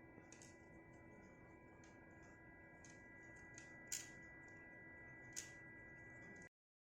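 Faint scattered clicks and ticks of a crochet hook and beads being worked, two of them a little louder about four and five and a half seconds in, over a faint steady electrical whine. The sound cuts off abruptly near the end.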